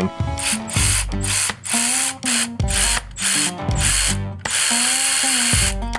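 Milwaukee cordless electric ratchet running in repeated short bursts, then in one longer run of about a second near the end, as it backs out bolts on the engine. Background music plays under it.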